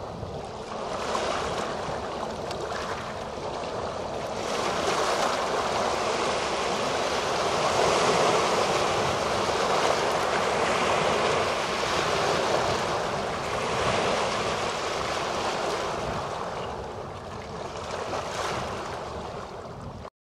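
Small waves of the Elbe washing over rounded stones and pebbles at the water's edge, swelling and ebbing, loudest about halfway through. The sound cuts off suddenly at the end.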